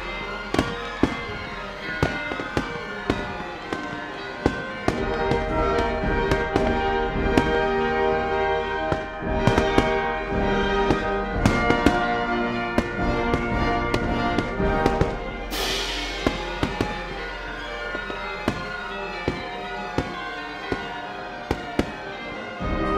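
Fireworks going off in quick succession, sharp bangs and cracks every half second or so, thickest in the middle, over music.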